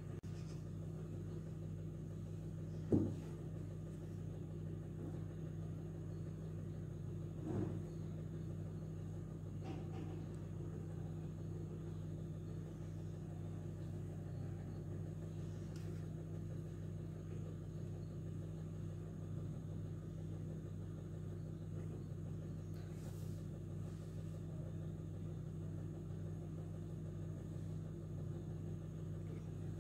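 Steady low hum with a few fixed low tones, broken by two soft knocks, about three and seven and a half seconds in.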